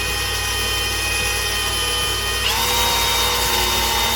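Electric drill with a 3/16-inch bit running as it bores into the steel upper control arm, making a pilot hole to be tapped for a grease fitting. The motor's steady whine steps up in pitch about two and a half seconds in.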